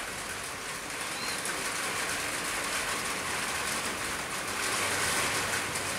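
Light rain falling: a steady, even hiss of drops.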